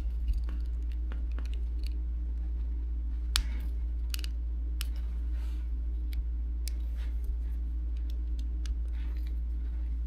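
Irregular small plastic clicks and scratches as fingernails pry apart the plastic shell of a 2015 Subaru Outback key fob, over a steady low hum.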